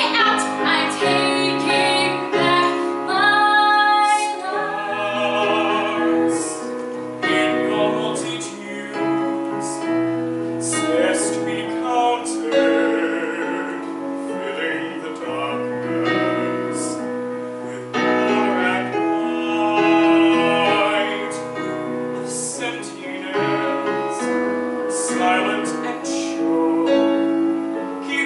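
A woman singing a song with piano accompaniment.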